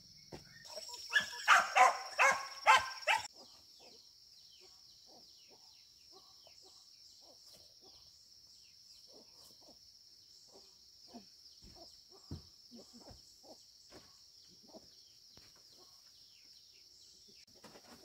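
An animal calls about six times in quick succession about a second in, over a steady high drone of insects; after that only faint scattered clicks and rustles.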